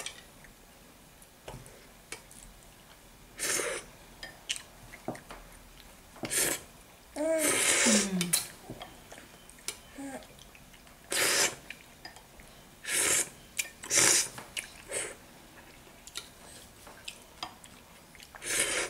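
Spoon-feeding a baby: about seven short scraping, hissing noises from the feeding spoon and bowl, spaced a few seconds apart. A brief sliding voice sound comes about halfway through.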